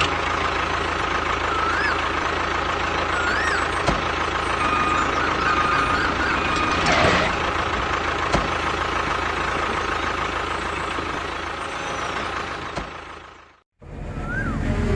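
A small motor running steadily with a constant high whine, fading out near the end, followed by a brief silence.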